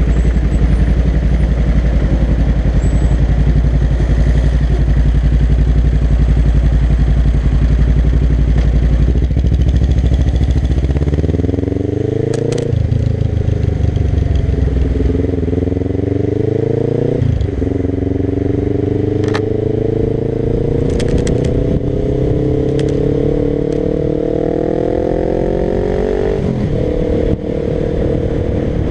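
Suzuki GS500's air-cooled parallel-twin engine through a Dominator GP1 aftermarket exhaust, idling with a steady low rumble. About ten seconds in it pulls away, and the revs climb in each gear, with three upshifts where the pitch drops sharply before climbing again.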